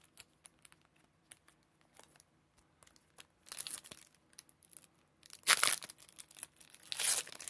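Foil wrapper of a Donruss Optic trading-card pack being handled and then torn open by hand: faint crinkling at first, then several loud rips from about three and a half seconds in, the loudest near the end.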